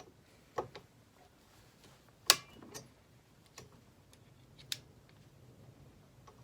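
Scattered sharp clicks and taps of small hand tools on scope ring screws: about six separate clicks, the loudest a little over two seconds in.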